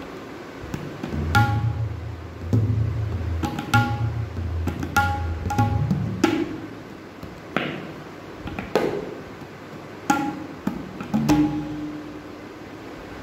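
Tabla playing the theka of ektal at a very slow ati vilambit tempo: widely spaced ringing strokes on the dayan, with deep bass strokes on the bayan that are heaviest in the first half and sparse after about six seconds.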